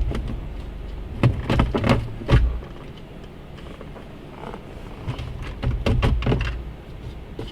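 Knocks, thunks and rattles of a plastic center console insert being pushed and worked into place, in two clusters, over a steady low hum.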